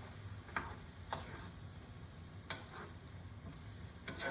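Spoon stirring sautéed peaches in syrup in a cast iron skillet: a few faint, soft scrapes spaced a second or more apart, over a steady low hum.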